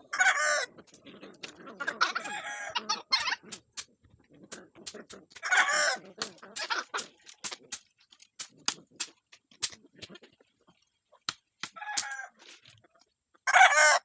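Chickens calling: a rooster crowing and hens clucking in several loud calls, with many sharp clicks or snaps between them.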